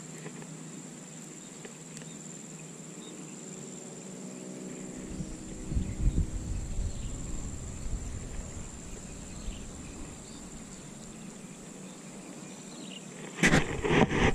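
Insects droning, one steady high-pitched tone that holds throughout. Wind buffets the microphone with a low rumble about a third of the way in, and louder near the end.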